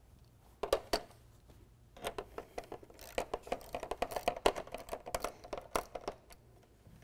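Socket ratchet clicking as a 10 mm nut is backed off the bottom of a grille shutter assembly: a few clicks just under a second in, then a fast, dense run of clicks for about four seconds.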